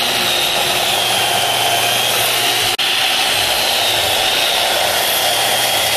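Steady electric motor noise from woodshop machinery, with a high whine held at one pitch; it drops out for an instant about halfway through.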